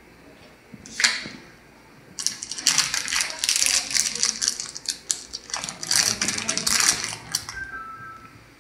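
Plastic wrapping crinkling and crackling as it is handled, from about two seconds in until near the end, after a single sharp click about a second in. A short two-note beep, the second note lower, comes near the end.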